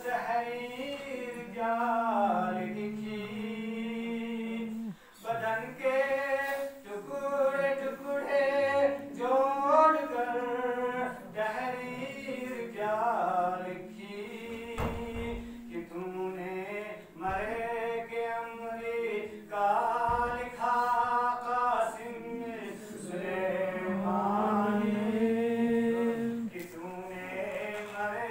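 A man's voice chanting a devotional recitation in long, melodic, drawn-out phrases, with short pauses between them.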